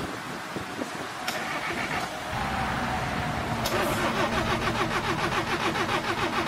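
An old car's engine being cranked by its starter: a click about three and a half seconds in, then an even, rhythmic churn of about five beats a second.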